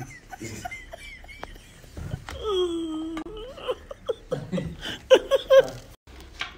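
Men laughing around a card table: a long drawn-out vocal exclamation about two seconds in, then a burst of loud, rhythmic ha-ha laughter near the end.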